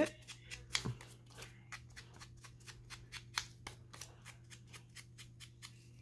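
Paper being worked by hand with a tool as its edges are distressed: a quick, irregular run of short, crisp scratches and clicks, several a second.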